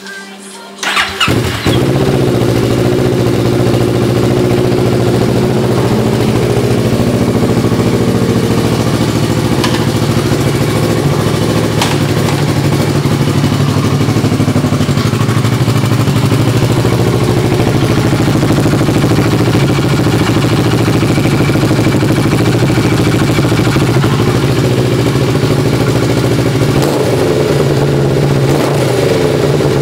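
Kawasaki ER-6f's 649 cc parallel-twin engine catches about a second in, then idles steadily, loud through its modified stock exhaust.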